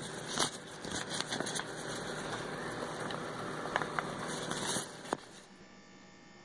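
Rustling and scraping handling noise, with scattered crackles and clicks, as a phone is moved up close against paper and cloth; it stops about five and a half seconds in, leaving a faint hum.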